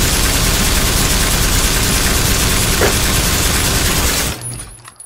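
Sustained rapid machine-gun fire, a loud unbroken rattle that stops about four seconds in and trails off.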